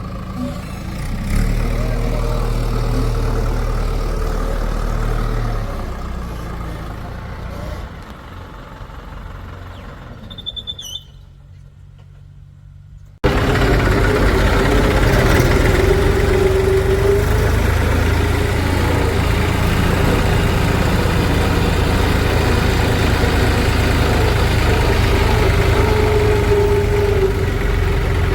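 Heavy diesel machinery engine running at a steady pace. It fades for a few seconds about halfway, and a louder engine sound cuts in abruptly.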